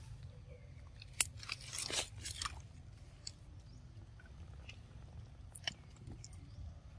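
Pig-tailed macaque biting and chewing a yellow fruit: a sharp bite about a second in, a run of crunching bites around two seconds in, then scattered small chewing clicks.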